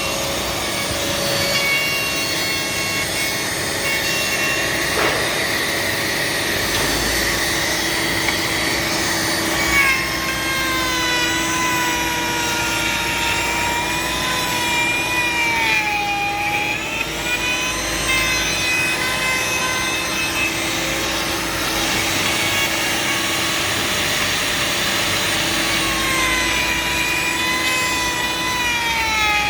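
Power tool motor running steadily while working material, its whine sagging in pitch and recovering several times as load comes on and off.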